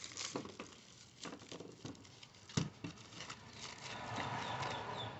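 A plastic parts bag rustling while small carburetor-kit parts (air filter, fuel line, spark plug, gaskets) are tipped out and set down on a wooden workbench. Light scattered taps and clicks, with one sharper click about two and a half seconds in.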